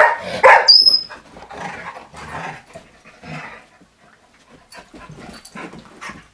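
Puppies barking and growling in play, loudest in the first second, then softer growls. A brief high whistle sounds just under a second in.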